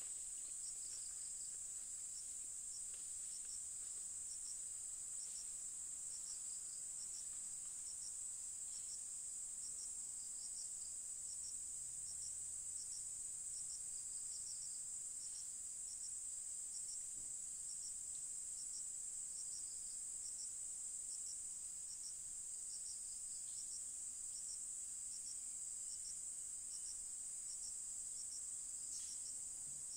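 Tropical forest insects: a continuous high-pitched drone, with a second high chirp repeating steadily about once every three-quarters of a second.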